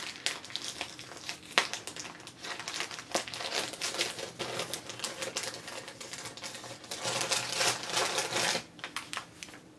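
Crinkly gift wrapping crackling and rustling in rapid, irregular clicks as a small present is unwrapped by hand; it stops about a second before the end.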